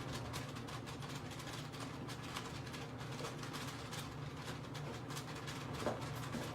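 Steady low hum of HVAC equipment running on a call for cooling, with faint irregular ticks over it.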